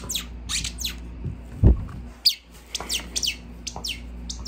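Squeaky tennis-ball dog toy squeezed again and again, each squeak a short high note that falls in pitch, coming in quick runs of several a second. A single dull thump a little before the middle.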